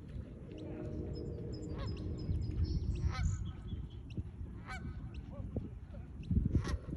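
Birds honking: several short, separate calls a second or more apart, over a steady low rumble.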